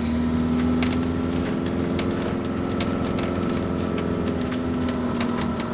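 Motorhome engine running steadily on the move, heard from inside the cab, with scattered light clicks throughout.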